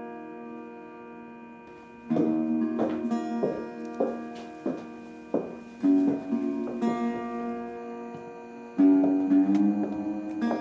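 Background music on guitar. A chord rings out and fades, single notes are plucked one by one from about two seconds in, and another chord is struck near the end.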